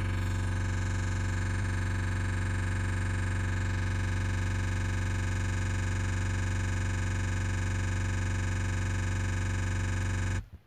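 Steady electrical buzz-hum with many overtones, strongest at its low hum, from the car mirror monitor's built-in speaker; it cuts off suddenly near the end.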